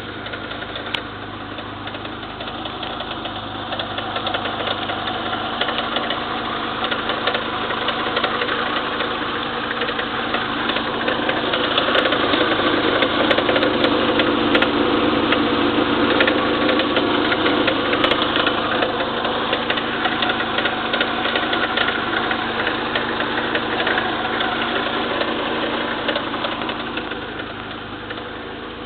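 Engine running steadily with fast clicking over its sound, growing louder towards the middle and easing back near the end; the owner treats the noise as abnormal.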